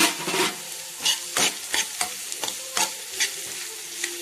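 Metal spatula scraping and knocking against a metal kadai, about two strokes a second, as black nightshade leaves are stirred into frying onions and green chillies, over a steady sizzle of hot oil.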